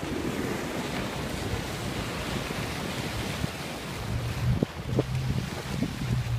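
Wind on the microphone and rushing water, with the steady low hum of a Yamaha F90 four-stroke outboard coming through about four seconds in as the rigid inflatable boat passes close under power.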